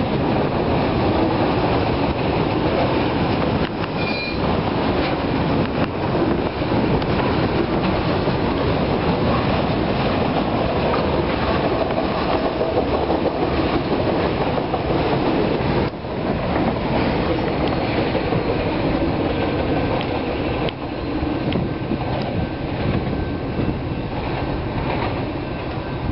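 Freight train of autorack cars rolling past close by: a steady, continuous rumble of steel wheels on the rails.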